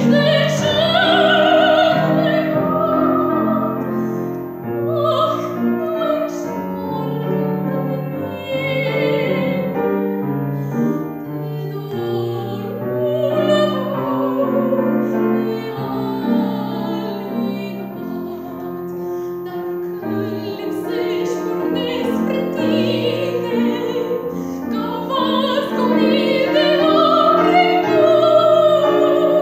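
A woman's trained classical voice singing an art song with strong vibrato, accompanied by piano. Long held high notes swell near the start and again near the end.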